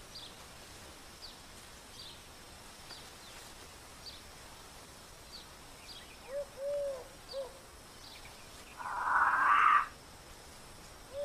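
Forest wildlife ambience: faint high chirps every second or so, a run of three short, low, arched hooting calls about six seconds in, and a harsh one-second rasp about nine seconds in, the loudest sound.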